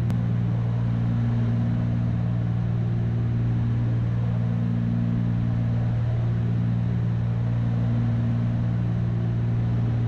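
Cabin drone of a Cessna 310's twin piston engines and propellers in steady level cruise: an even, unchanging low hum.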